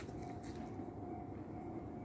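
Tobu Tojo Line electric train running, a steady low rumble with a faint steady hum.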